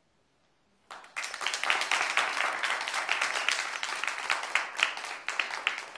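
Audience applauding, breaking out abruptly about a second in.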